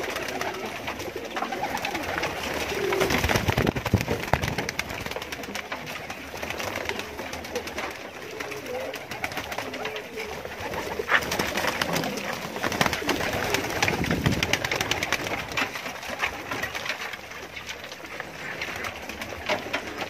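A crowded flock of domestic pigeons feeding: cooing, with wings flapping and many small clicks and scuffles of pecking and feet on the straw floor. The clatter swells twice, about three seconds in and again around the middle.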